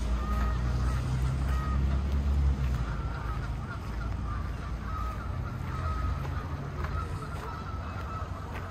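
Geese honking in short, repeated calls over a low rumble of city traffic, which eases after the first two and a half seconds.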